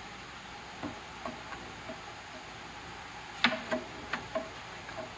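Light wooden knocks and clicks as window-frame parts and thin wooden strips are handled and laid against one another: about a dozen irregular taps, the loudest about three and a half seconds in, some with a short woody ring. A steady hiss runs underneath.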